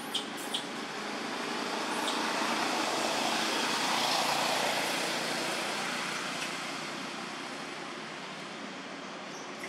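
A road vehicle passing by: a swell of noise that builds over a few seconds, peaks about four seconds in, then fades away. A few short high chirps come near the start.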